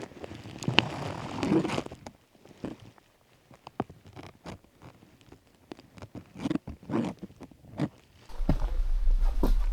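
Hiking gear being handled: rustling and a zipper, then scattered clicks and scrapes. About eight seconds in, a steady low rumble sets in.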